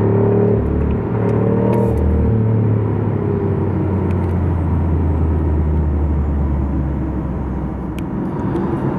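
BMW i8 plug-in hybrid heard from inside the cabin while slowing down: a steady low drone from the drivetrain over tyre and road noise. Its pitch lines are clearest for the first few seconds, then it settles into a plain low hum.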